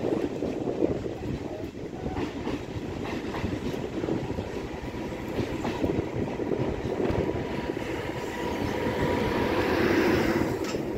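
Passenger train rolling underneath, its wheels clattering over rail joints and points in an uneven rhythm over a steady rumble. A faint high whine and a swelling hiss rise near the end as the last cars pass.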